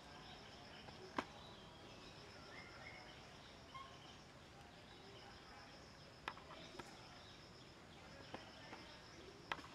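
Faint outdoor ambience: an insect trilling in steady stretches of two or three seconds with short breaks between them, and a few sharp clicks scattered through.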